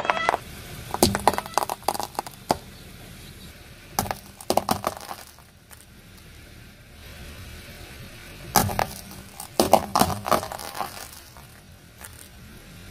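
Hard-candy lollipops cracking and crunching as a car tyre rolls over them on concrete, in three bursts of sharp cracks and crackle.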